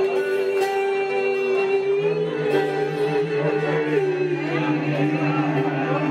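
Live acoustic duo music on two acoustic guitars with long held notes. One note sustains for about four seconds, then bends and drops; a lower note joins about two seconds in.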